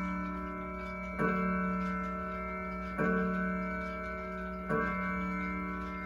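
Howard Miller Westmont wind-up wall clock striking the hour on a single low chime: three even strokes about two seconds apart, each ringing on and slowly fading, with the pendulum movement ticking underneath.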